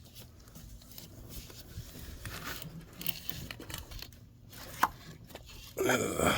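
Hands working a tight plastic electrical connector off an ignition coil pack: scraping and crackling of plastic being squeezed and tugged, with a sharp click near the five-second mark.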